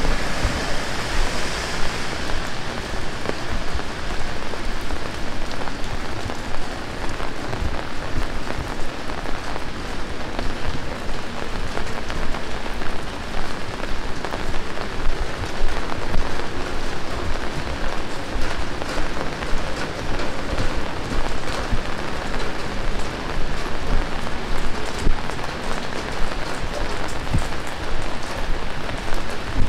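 Heavy rain falling steadily, a dense hiss with many sharp, close drop hits scattered through it. A higher hiss dies away about two seconds in.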